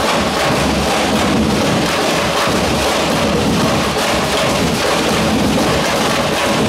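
Carnival drum corps of large bass drums and snare-type drums playing together, a loud, dense and continuous drumming.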